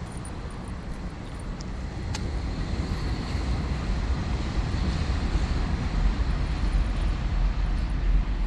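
Outdoor street ambience: a low rumble of traffic that grows steadily louder, with a single sharp click about two seconds in.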